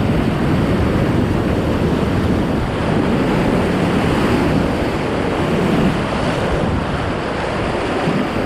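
Whitewater rushing through a rocky creek rapid: a loud, steady rush of water, with wind noise on the microphone.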